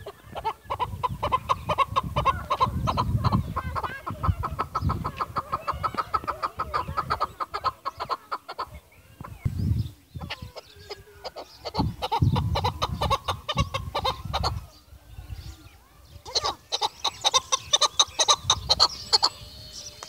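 Chukar partridge calling in three long runs of rapid, evenly repeated chuck notes at several notes a second, the first lasting about eight seconds, with short pauses between runs. A low rumble runs underneath.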